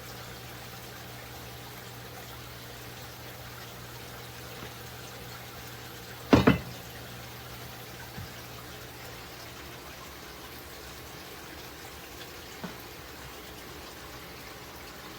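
Steady low hum and hiss, with one loud double clunk about six seconds in and a few faint knocks later: containers such as cheese packs and salad dressing bottles being handled and set down on refrigerator shelves.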